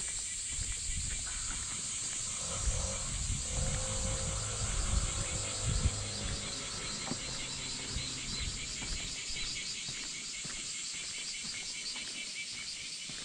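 Steady high-pitched insect chorus with a fast, even pulsing, heard throughout. Low rumble and a few soft knocks rise under it between about two and six seconds in.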